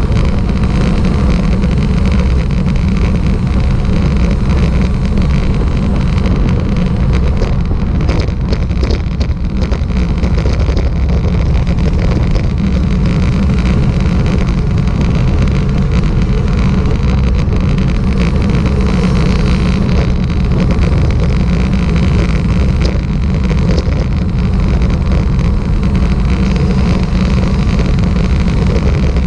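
Steady low rumble of wind and road noise on the microphone of a camera moving at speed, with no breaks or distinct events.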